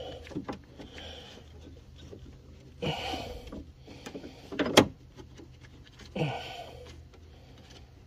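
Hands and tools working metal parts inside a car door while fitting a window regulator bolt that will not catch its thread: small clicks, two short scraping rushes and one sharp metallic knock just before the middle. A faint low hum runs underneath.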